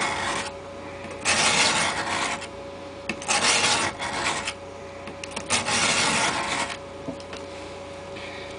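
Steel knife blade drawn in long strokes across the 300 face of a four-sided diamond-dust sharpening block, one stroke about every two seconds. The strokes stop about seven seconds in as the blade is lifted off the block.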